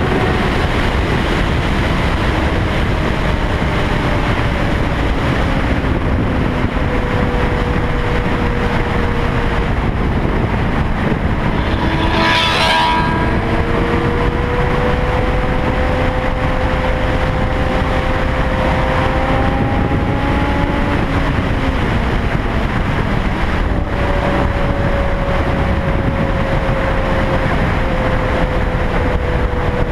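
A loud motor running steadily under a dense rumbling noise, its faint tones slowly drifting in pitch, with a brief stronger surge about halfway through.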